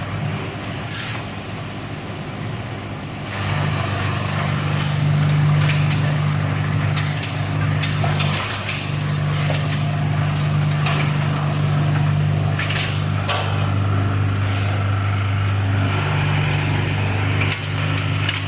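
Soil crusher and its feed belt conveyors running: a steady low mechanical hum with scattered knocks and rattles, getting louder about three seconds in.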